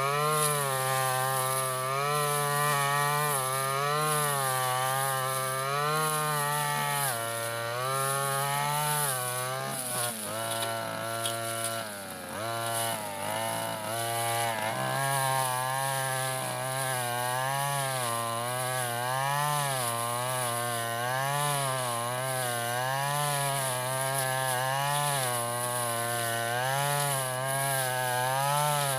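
Stihl FR 3001 backpack brushcutter's two-stroke engine running hard while cutting tall cogon grass. Its pitch rises and falls about once a second as the blade takes each swath. About ten seconds in, the engine dips and runs unevenly for a few seconds before picking up again.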